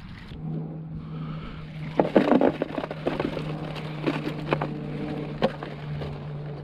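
A yabby net being shaken out over a foam sorting tray: rattling and knocks from the net's hoops and the yabbies tumbling into the tray, loudest about two seconds in, with further single knocks later. Under it runs a steady low hum, like a distant motor.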